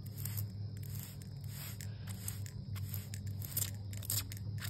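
Glass mist-spray bottle with a brass pump nozzle spritzing a liquid onto a tree's bare roots, a series of short, sharp spritzes about every half second, over a steady low hum.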